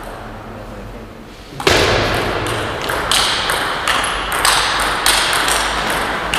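Table tennis rally: the ball clicks off the rackets and bounces on the Donic table, about two to three sharp hits a second. The hits start after a quiet pause of a second and a half.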